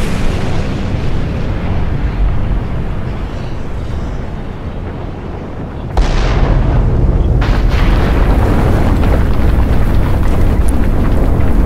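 Deep rumbling of a volcanic eruption that slowly fades, then a sudden explosion blast about six seconds in, followed by a continuous heavy rumble.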